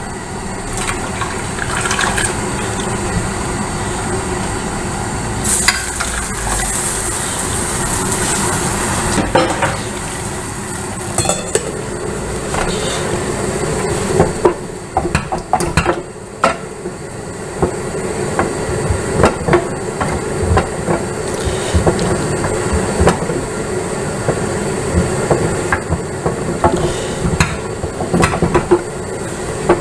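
Spoon stirring in a pot of caramelized sugar being dissolved in apple-and-sage water, with many quick clinks against the pan over a steady sizzling hiss. The hiss turns brighter for about four seconds starting about five seconds in.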